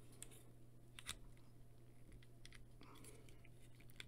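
Faint clicks and scrapes of plastic action-figure parts being handled, as a cannon piece is fitted onto the back of a Transformers Cyberverse Dinobot Slug toy. The loudest click comes about a second in.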